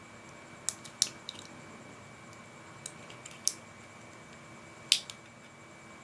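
Irregular sharp plastic clicks and snaps, several in six seconds and loudest about a second in and near the end, from the plastic parts of a small E99 toy drone being handled and fitted together.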